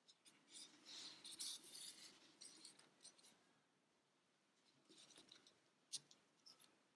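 Faint rustling and rubbing of fingers handling a crocheted amigurumi while yarn is drawn through its stitches with a sewing needle. It comes in two spells, one about a second in and one near the end, with a single sharp tick just before the end.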